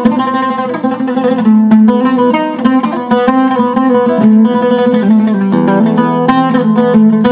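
Zaryab oud with a cedar top and an African mahogany back, played solo: a melodic passage of quick plucked notes that shifts pitch from note to note.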